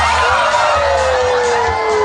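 Music with a steady low beat, under an audience cheering and whooping, with one long tone falling slowly in pitch.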